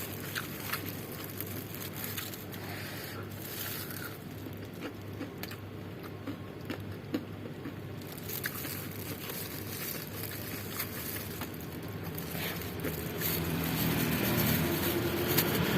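Quiet eating sounds: small clicks, scrapes and chewing over a meal of fried chicken and rice, over a steady low background hum. A motor vehicle's engine grows louder over the last few seconds.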